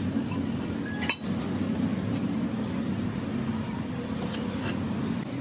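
Short steel pipe pieces clinking against a steel plate as they are set in place: one sharp clink about a second in, then lighter taps a little after four seconds, over a steady low hum.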